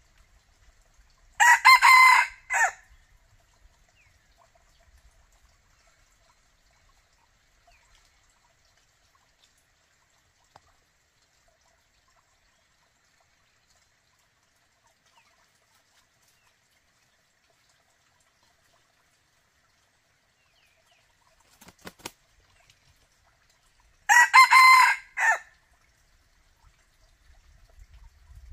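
Red junglefowl rooster crowing twice, about twenty seconds apart. Each crow lasts just over a second, with a short break before its final note. There are a couple of faint clicks shortly before the second crow.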